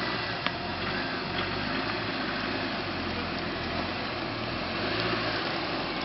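Chevrolet Niva's engine running steadily, with a few light clicks.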